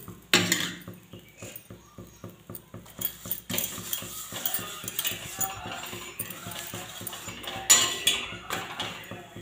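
Metal spatula tapping and scraping on a flat iron tawa as a paratha is pressed and turned, with many light clicks and a sharp clank about half a second in and another near the end.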